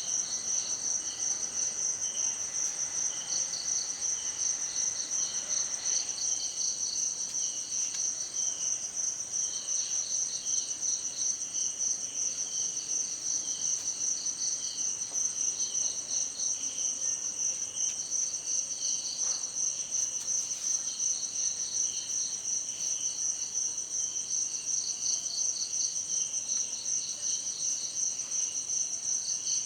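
A chorus of insects: one high, steady trill runs on unbroken, while others chirp in regular pulses about twice a second.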